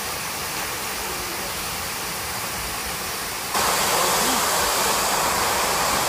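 Steady rush of water from a river's rapids or waterfall, jumping abruptly louder and brighter about three and a half seconds in.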